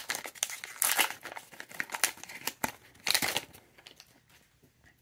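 Foil Kayou Naruto booster pack wrapper crinkling and tearing as it is opened by hand and the cards are worked out. The crackling comes in quick, irregular rustles and stops after about three and a half seconds.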